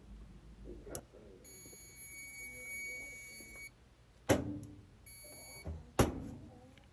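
Multimeter continuity beeper sounding across the dryer's push-to-start switch: a steady high beep for about two seconds, then a shorter beep near the end, showing the switch contacts closing. Three sharp clicks of the switch being worked come before, between and after the beeps.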